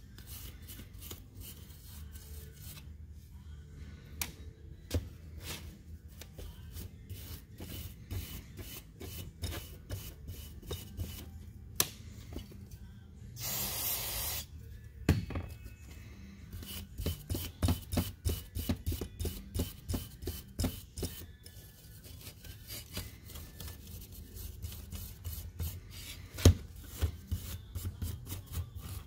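Brass wire brush scrubbing a Carter BBS one-barrel carburetor body in quick scratchy strokes, with the occasional sharp knock of brush or part on the bench. About halfway through, a hiss of about a second as aerosol carburetor cleaner is sprayed onto the body through its straw; the brushing then resumes.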